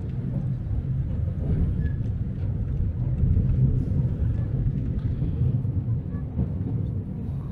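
Steady low rumble on the open upper deck of a moving horse-drawn tram: wind buffeting the microphone together with the tram's running noise.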